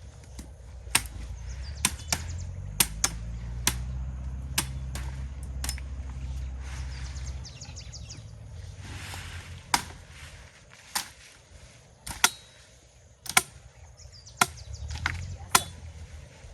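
Panga (machete) chopping through vegetation: sharp strikes, irregular and roughly one a second, with a pause of a few seconds midway. A low steady hum runs under the first half.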